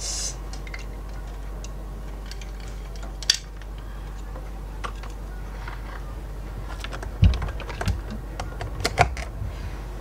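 Scattered light clicks, taps and a few soft thumps of hands handling a charging cable and phone charger plug on a tabletop, with a cluster of thumps and clicks near the end, over a steady low hum.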